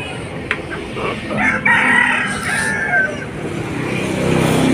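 A chicken giving a long, harsh call, about one and a half to three seconds in, with a single sharp knock just before it. Road traffic noise swells near the end.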